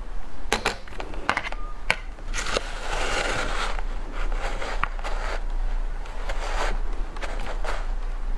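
A spoon scraping and digging into shaved ice in a glass bowl: sharp clicks in the first two seconds, then several crunchy scrapes of about a second each.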